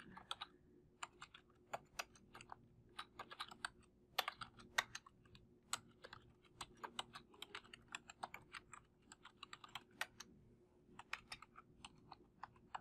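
Faint typing on a computer keyboard: irregular runs of keystrokes separated by short pauses.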